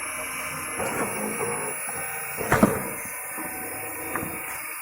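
Homemade screw-cone log splitter driven by a washing-machine motor running steadily with a constant high whine, while wood gives a few sharp knocks and cracks, the loudest a quick double crack about halfway through.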